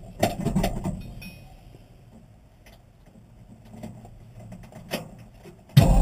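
Clunks and rustling as a person settles into an old car's driver's seat, then a few small clicks of keys being handled at the ignition. Music cuts in abruptly near the end.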